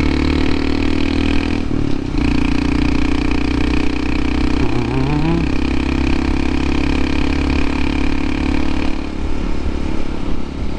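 Honda CT125 Hunter Cub's air-cooled single-cylinder engine running steadily under way on a steep mountain road. There is a brief dip in the engine note about two seconds in, and a short rising whine about halfway through.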